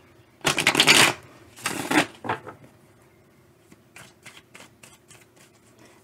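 A deck of tarot cards being shuffled by hand: two loud bursts of shuffling in the first two seconds, a shorter one just after, then soft scattered clicks of cards.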